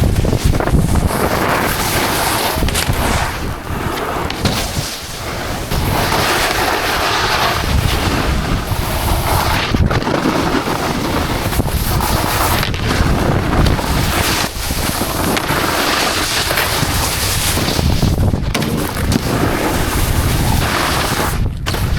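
Steady, loud wind rush buffeting a helmet-mounted action-camera microphone while snowboarding downhill, mixed with the board's edges scraping and sliding over the snow, with a few brief dips.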